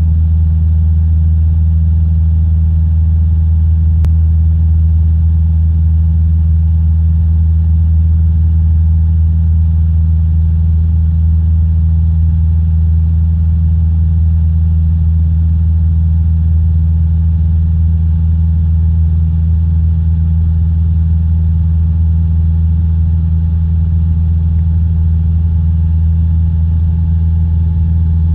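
Cabin drone of a single-engine piston light aircraft in cruise: the engine and propeller run at a steady, unchanging low hum, heard from inside the cockpit.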